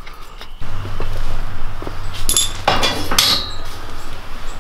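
Metal clanks and clinks, several knocks in quick succession with a brief ringing, as a car seat's steel rails and brackets are set onto a tubular steel frame, over a steady low hum in the shop.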